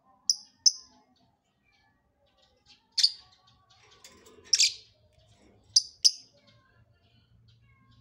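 Blue-mutation lovebird giving six short, shrill chirps, the first two and the last two each in a quick pair.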